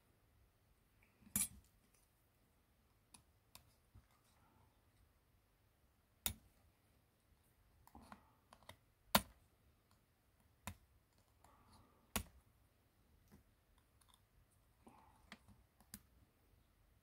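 Small tools and smartphone parts being handled during disassembly: sparse sharp clicks and taps a few seconds apart, with fainter ticks and soft handling noise between.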